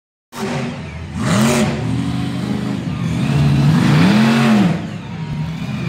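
Monster truck engine running loudly and revved twice, the pitch swinging up and back down about a second in and again about four seconds in.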